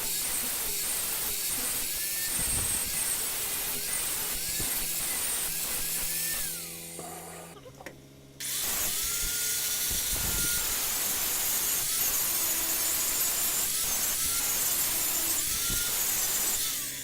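Belt grinder running as a forged knife blade is ground, its pitch dipping and recovering again and again as the steel is pressed to the belt. It winds down about seven seconds in and starts up again abruptly about a second later.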